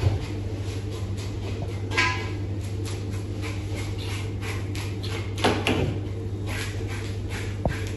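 Knife tapping and scraping on a plastic cutting board as fish is cut, short knocks throughout, with a ringing clink about two seconds in and a louder scrape around five and a half seconds. A steady low machine hum lies underneath.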